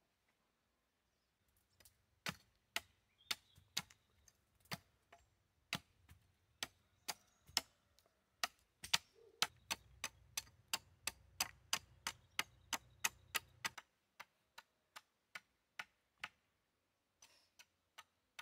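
A long series of sharp knocks, about two a second, quickening to about three a second in the middle, then thinning out and stopping near the end.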